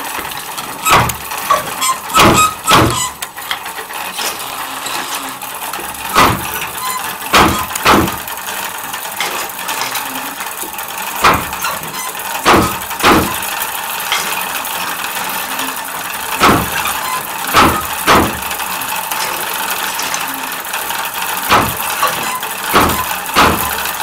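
Wooden handloom being worked: sharp wooden knocks come in groups of three, one then two close together, about every five seconds, as the beater is pulled against the weave. A steady hiss runs underneath.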